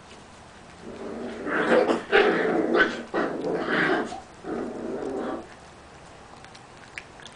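A young puppy growling in four drawn-out stretches over about four and a half seconds, at its food bowl while eating.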